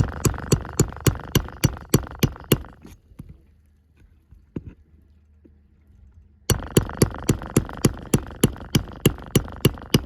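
Hammer striking a metal roof snake in quick, even blows, about four a second, driving a nail in under a shingle, with the tool ringing between blows. There is a run of about a dozen blows, a pause of a few seconds, then a second run.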